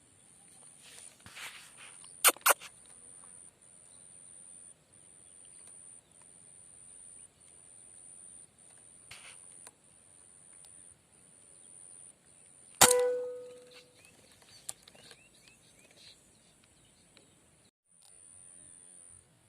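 One loud, sharp shot about thirteen seconds in, with a short metallic ring after it, and two quick sharp clicks a couple of seconds in. Behind them a high-pitched insect buzz keeps going in pulses of about a second each.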